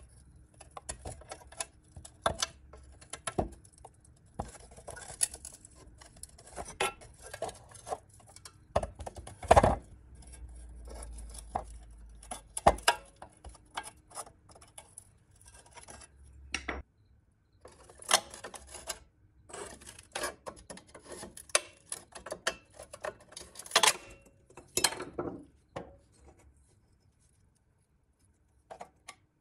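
Steel pick tool prying and scraping at the bent tabs of a rusty pressed-steel toy truck cab, giving irregular metallic clicks, scrapes and light knocks as the parts are worked loose and handled, with one sharper knock about nine seconds in.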